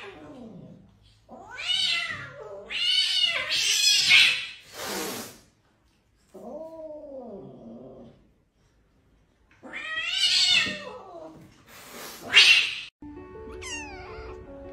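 Domestic cat yowling again and again in distress while a monkey pulls at it, long rising-and-falling wails with a couple of short hisses among them. About thirteen seconds in, music starts, with a kitten's quick high meows over it.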